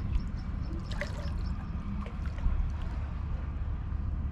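Sea water gently lapping and trickling among shoreline boulders, with faint small splashes, over a steady low rumble.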